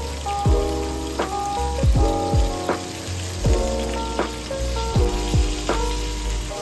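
Steaks sizzling as they sear in a frying pan, under background music with a steady beat of deep kick drums and held notes.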